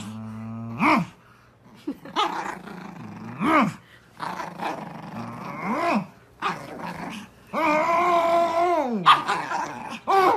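Pug play-growling and giving short yips while tugging a rope toy, in separate calls every second or two, with one longer call that falls away about three quarters of the way through.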